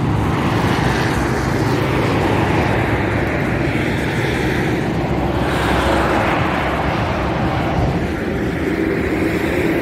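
Highway traffic passing under the footbridge: a continuous rush of tyres and engines that swells and eases as vehicles go by, trucks among them.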